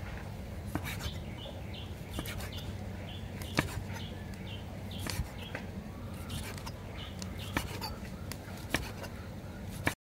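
Chef's knife slicing through boiled pork belly and knocking on a wooden chopping board, with irregular knocks about once a second, the sharpest about three and a half seconds in.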